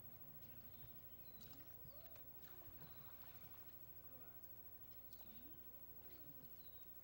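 Near silence: a faint steady hum and hiss with faint, indistinct voices.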